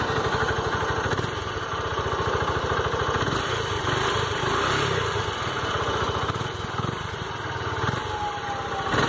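Yamaha Factor motorcycle's single-cylinder engine idling steadily, its exhaust note coming from an open exhaust tip with the washer removed. To the owner it sounds the same as with the washer fitted.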